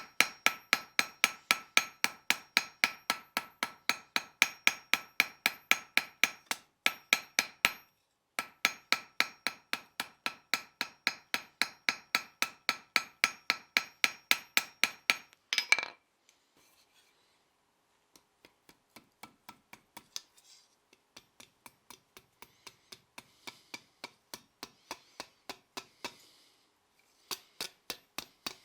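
Hammer blows on hot steel over an anvil, drawing out the hook end of a forged hook. The blows come quickly and evenly, about four a second, with the anvil ringing under each one, and there is a short break about 8 s in. After about 16 s the blows turn into softer, irregular taps without the ring.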